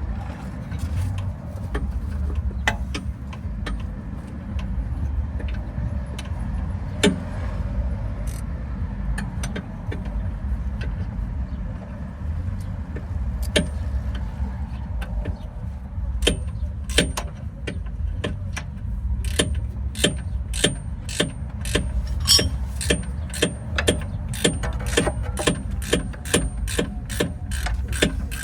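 Sharp metallic clicks of hand tools working on metal, scattered at first, then a steady run of about two a second from about halfway in, over a low steady rumble.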